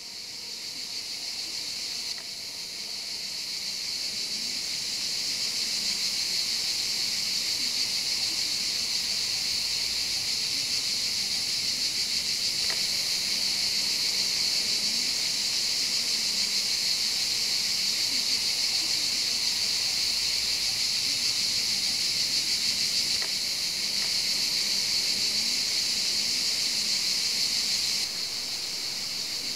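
Chorus of cicadas, a steady, shrill, high-pitched drone that swells over the first few seconds and then holds.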